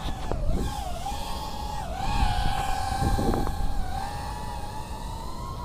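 Small FPV racing quadcopter's brushless motors and propellers whining, the pitch dipping a few times with the throttle, then holding steady and creeping up near the end, over a low rumble of wind on the microphone.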